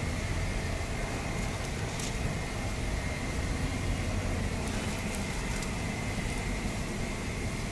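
Steady low rumble and hiss of a street food stall, with a thin high whine held throughout and a few faint clicks.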